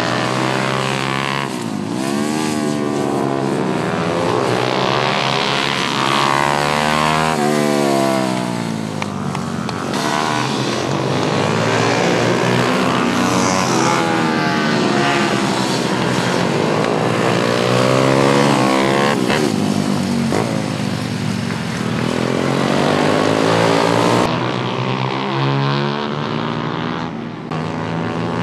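Small racing motorcycles at full throttle on a circuit, their engines revving high, then dropping and rising again over and over as they change gear and brake for the corners. Several bikes overlap at times.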